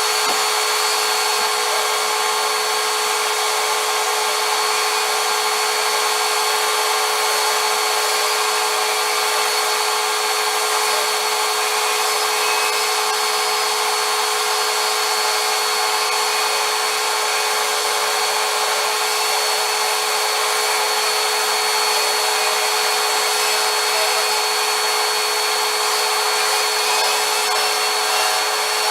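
Vacuum cleaner running steadily, a continuous motor whine over a hiss of rushing air.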